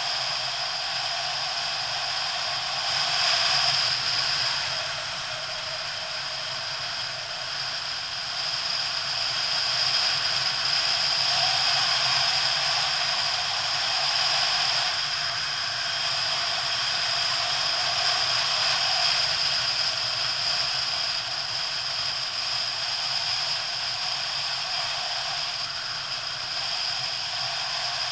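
Steady wind noise over a camera riding on a moving motorcycle, with the bike's engine running underneath.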